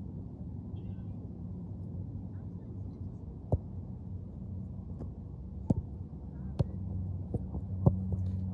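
A football being touched several times by a player's foot as he brings it along on artificial turf: a series of short sharp taps from a few seconds in, over a steady low hum.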